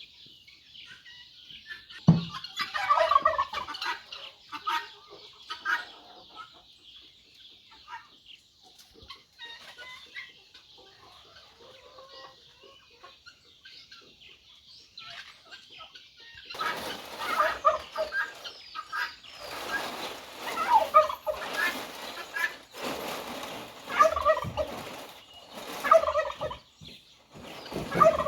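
A flock of turkeys gobbling, in a loud run of repeated gobbles that starts about halfway through, with scattered chicken clucks and calls before it.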